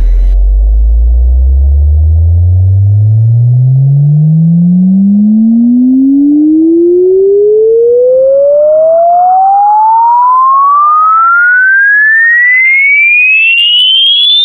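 A pure sine-wave tone with no overtones sweeping steadily upward in pitch, from a very deep low note to a high whistle.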